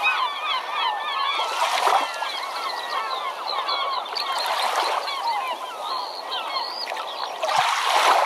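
A flock of birds calling, many short chirping calls overlapping without pause. Three brief rushes of noise come through it, about a second and a half in, midway and near the end.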